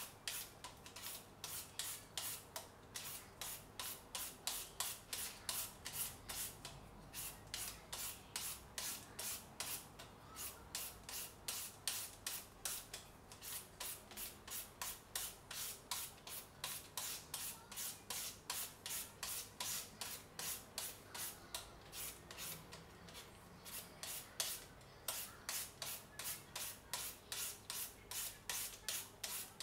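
Rhythmic scraping strokes, about two to three a second, of a hand shredder blade cutting strands off a firm, unripe green papaya for papaya salad.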